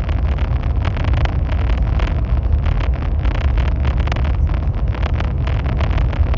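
Chinese high-speed train running at speed, heard from inside: a steady low rumble with wind and rail noise over it.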